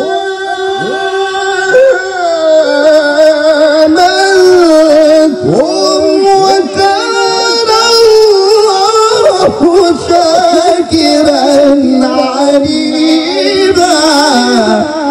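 Male qari's Quran recitation (tilawah), sung into a microphone: long held, richly ornamented melismatic notes that waver and glide, sinking in pitch to a close near the end.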